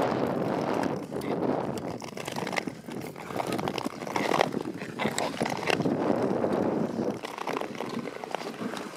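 Ice skate blades scraping and gliding over natural lake ice, a rushing noise that swells and fades every second or so with the skating strokes.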